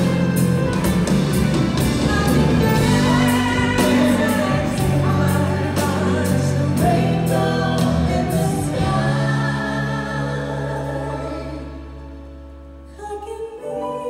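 Live concert performance of a pop ballad, heard from the audience: a female singer with a full band and steady drum hits. About nine seconds in, the drums drop out and held chords fade away, then near the end a softer section begins with her solo voice over light accompaniment.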